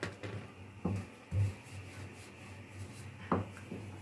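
A few light knocks and rubs of a wooden rolling pin and hands working paratha dough on a stone countertop, the loudest a dull thump about a second and a half in and a sharper knock near the end, over a steady low hum.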